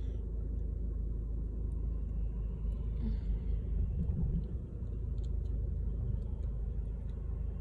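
Steady low engine and road rumble of a diesel car being driven, heard from inside the cabin.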